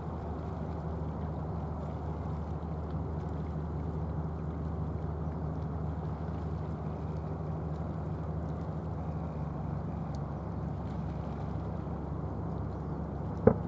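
Engine of a nori-farming boat running steadily at planing speed, a low, even drone. One sharp click near the end.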